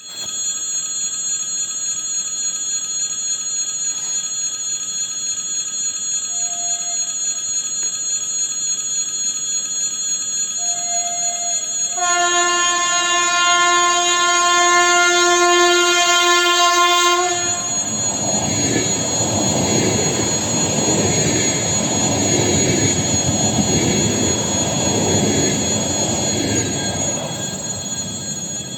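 ESh2 double-decker electric train sounding its horn loudly in one long blast of about five seconds, after two short faint toots, then passing close with a loud rumble of wheels on the rails.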